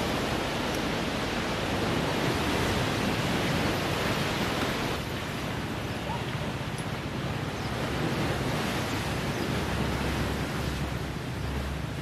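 Strong wind blowing across the microphone, with sea surf breaking in the background; the low wind rumble on the microphone grows heavier near the end.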